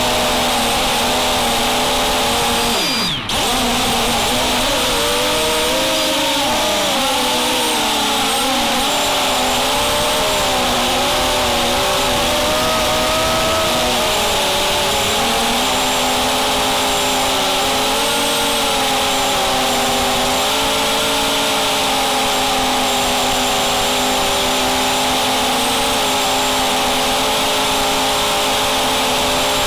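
QAV250 racing quadcopter's four brushless motors and propellers whining close up. Several pitches waver up and down together as the throttle changes, over a steady hiss. About three seconds in, the sound briefly drops and sweeps down before coming back.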